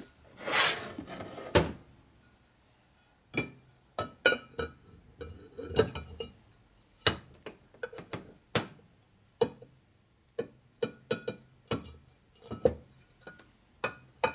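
Metal parts clinking and knocking with a short ringing note as a Harley Evolution engine crankcase half is handled and turned on the workbench. A brief scraping rush comes first, then about twenty separate clinks at irregular gaps of half a second to a second.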